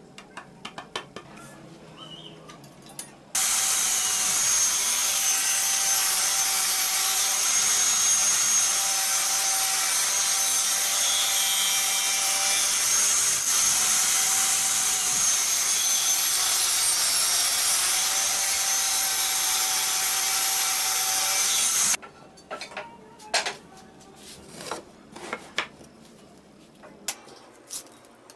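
A table saw running as a wooden board is fed through the blade: a loud, steady whine and rasp that starts abruptly a few seconds in and cuts off abruptly about eighteen seconds later. Before and after it, light knocks and taps of the board being handled on a wooden workbench.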